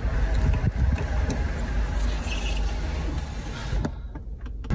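Cabin noise of a car being driven: a steady low engine and road rumble with a hiss over it. The sound thins and drops away briefly near the end.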